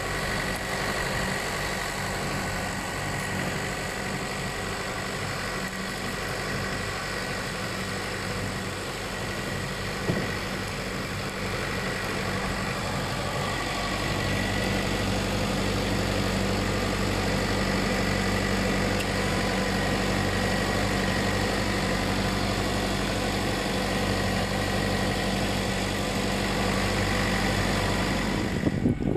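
Farm tractor's engine running steadily under load while it pulls a boom sprayer, a constant pitched drone. A single short knock about ten seconds in.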